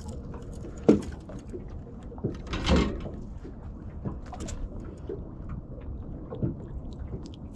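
Handling noises as a small whiting is unhooked by hand on a boat: a sharp knock about a second in, a short louder rustle near three seconds, and scattered light clicks over a steady low background.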